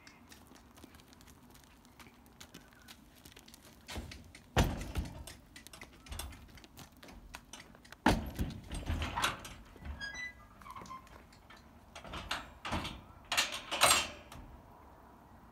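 Horse's hooves thudding on the wooden ramp and floor of a horse float as the mare walks in, with knocks of the trailer. One heavy thud comes about four and a half seconds in, then clusters of thumps around eight to nine and a half seconds and again around twelve to fourteen seconds.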